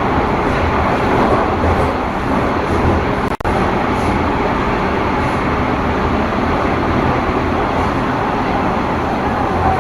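Subway train ride noise: the steady rumble and rush of a running metro train. It cuts out for an instant about a third of the way in.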